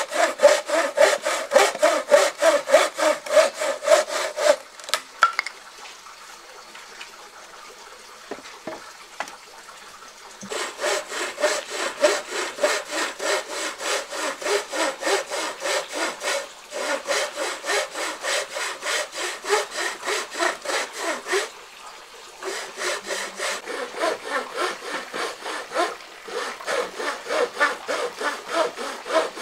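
Hand saw cutting through wood in quick, even back-and-forth strokes. The sawing stops for several seconds about four seconds in, with a few faint knocks, then starts again and runs with short breaks.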